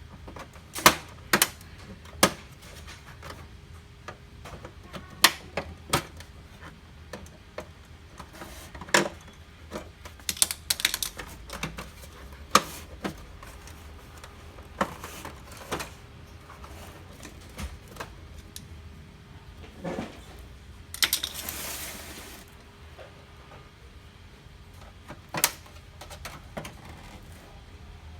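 Irregular sharp clicks and knocks of plastic printer parts and tools being handled while an HP LaserJet MFP 135a laser printer is taken apart, with one short scraping rustle about two-thirds of the way in.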